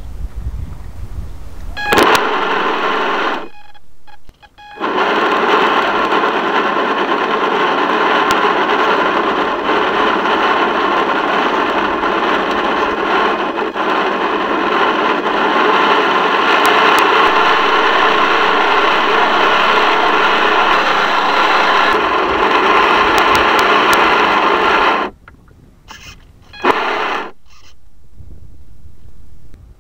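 Small boat motor running steadily, with a faint whine in a loud, even rushing noise. It switches on about two seconds in, drops out for about a second near four seconds, and cuts off suddenly near 25 seconds.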